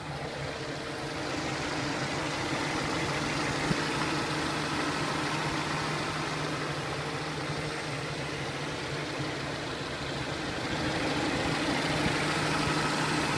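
Peugeot 307 1.4 16V four-cylinder petrol engine idling steadily. About eleven seconds in it grows slightly louder and a steady higher whine joins it.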